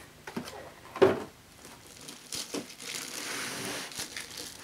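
Cardboard packaging and a plastic bag being handled: a single sharp cardboard knock about a second in, then small clicks and the crinkling rustle of the plastic bag wrapped around the cleaner as it is pulled at.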